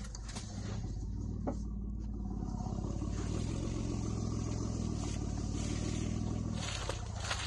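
2008 Mitsubishi Endeavor's 3.8-litre V6 running steadily at low speed, with the tires rolling over a dirt and mud trail.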